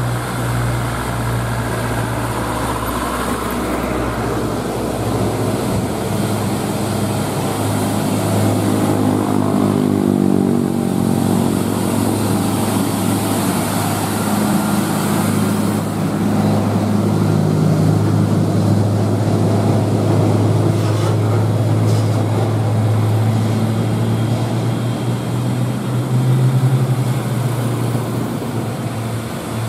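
Isuzu Giga container truck's diesel engine pulling up a hill at low speed, a steady deep drone that grows louder as the truck passes close, about halfway through. Other heavy trucks' engines run behind it.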